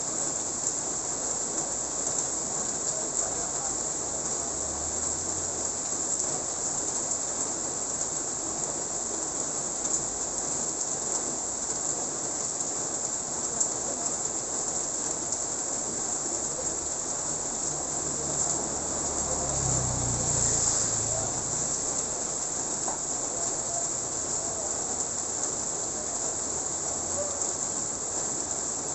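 Steady rain falling on a road and surroundings, with a constant high hiss above it. About two-thirds of the way in, a low rumble swells for a couple of seconds and fades.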